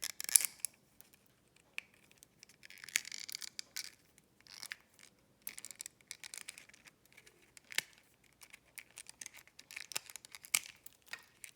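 Hands cracking open and handling a small plastic Hatchimals collectible egg: scattered sharp clicks, crackles and short scratchy, crinkly rustles.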